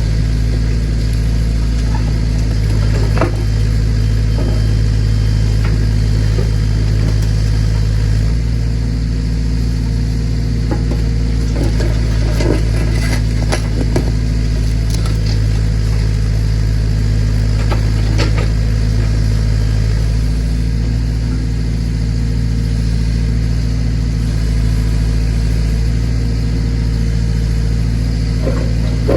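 Massey Ferguson backhoe's engine running steadily while digging, its note shifting with the load a couple of times. A few scattered knocks come from the digging.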